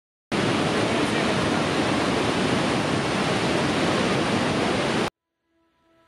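Iguazu Falls: the steady, dense rush of a huge volume of falling water, which cuts off abruptly about five seconds in.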